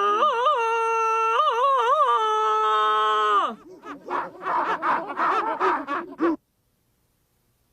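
A cartoon character's voice gives one long, high wailing cry with several quick wavers in pitch. It then breaks into short, choppy cries and cuts off suddenly a little after six seconds.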